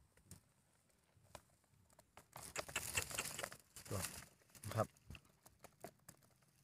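Rustling and scattered light ticks and taps as a catch of live small fish and shrimp is handled in a perforated plastic basket, busiest about halfway through.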